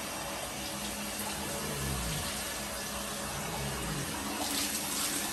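Shower water running steadily into a bathtub: an even, unbroken hiss.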